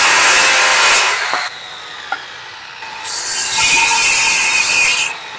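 Milwaukee circular saw cutting through a poplar board twice. The first cut ends about a second and a half in and the blade winds down. The second cut starts about three seconds in and stops just before the end.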